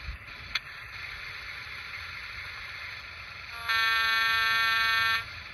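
Con-Cor Aerotrain model train's sound system sounding its horn once: a steady, single-pitch blast about a second and a half long, past the middle, over a steady background hiss.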